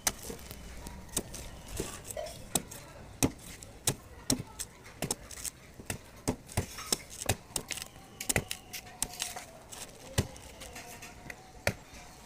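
A curved chopper blade hacking the husk off a palmyra palm fruit held in the hand: quick, irregular sharp chops, about two a second.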